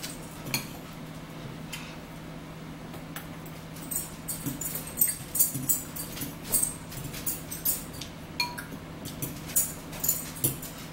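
Eating at the table: forks clicking and scraping against bowls, with chewing, the sharp little clicks coming thick from about four seconds in, over a steady low hum.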